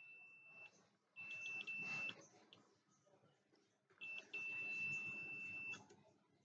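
Digital multimeter in continuity (beep) mode giving a steady high-pitched beep in three bursts, the last nearly two seconds long, as its probes touch motherboard capacitors reading about 26 ohms. The beep signals a low-resistance path, which the repairer takes for a short on the capacitors.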